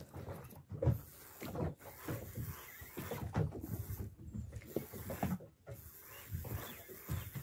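Fishing reel and tackle being worked by hand as the jig is sent down: irregular mechanical clicks and knocks, roughly one a second.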